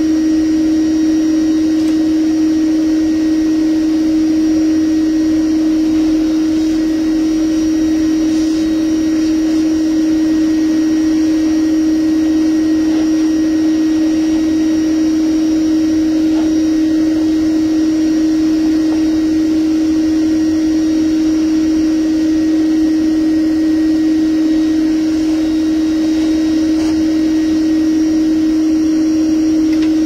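Bee vacuum running with a steady, unchanging hum, its hose held to the comb to draw up live bees.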